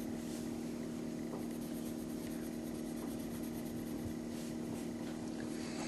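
Pencil shading on a paper art card: faint scratching strokes over a steady low hum.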